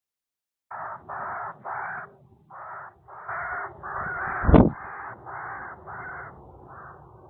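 A bird giving a run of about a dozen short, harsh calls in quick succession, starting just under a second in and fading toward the end. A loud thump about four and a half seconds in.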